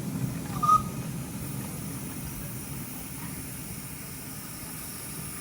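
Miniature steam locomotive hissing steadily over a low rumble, with one short, sharp high peep under a second in.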